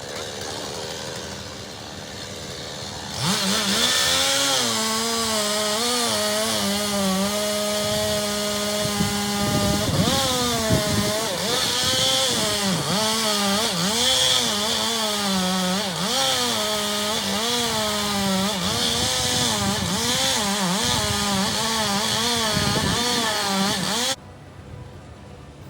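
Chainsaw engine running and cutting, its pitch rising and falling as it revs under load. It is quieter at first, louder from about three seconds in, and cuts off abruptly near the end.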